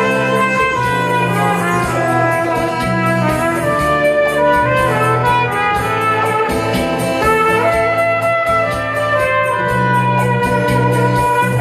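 Trumpet playing a melody of held notes over a backing track with a steady beat.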